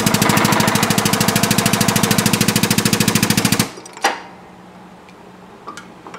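Hydraulic shop press running with a rapid, even mechanical pulsing that stops about three and a half seconds in, followed by a single clunk.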